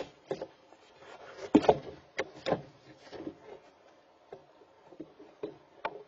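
Young barn owls moving about inside a wooden nest box: irregular knocks and scuffs against the wood, the loudest a pair about a second and a half in.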